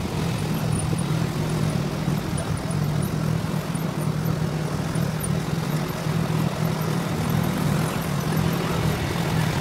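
Several quad-bike ATV engines running at a steady cruising speed, a constant low drone mixed with tyre and wind noise on a dirt road.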